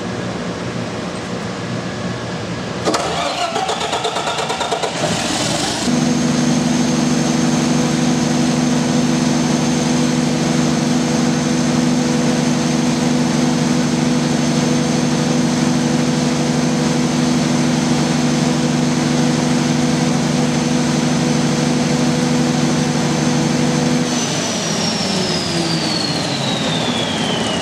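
Diesel standby generator set cranked by its starter and catching after a couple of seconds, then running at a steady speed with a high whine over the engine note. Near the end it shuts down and the whine glides down as it spins to a stop: a generator under-voltage shutdown, the output held low by a simulated voltage-regulator fault.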